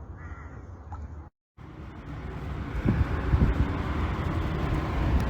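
Outdoor background noise that cuts out briefly about a second in, then comes back as a rising rumble with irregular gusts of wind on the microphone.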